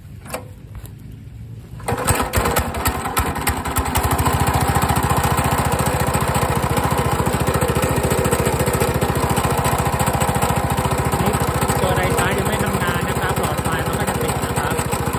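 Small general-purpose petrol engine on a DIY radio-controlled lawn mower starting about two seconds in, running unevenly for a couple of seconds, then settling into a steady idle. A short click comes just before it catches. At this idle the 24 V alternator it drives is not yet charging.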